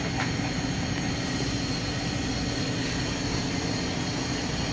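Air conditioning unit running steadily with a constant hum, just topped up with R134A refrigerant.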